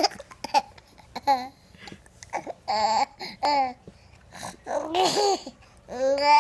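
Hiccups and laughter: a string of short, high voiced hiccup sounds spread over several seconds, with giggling between them.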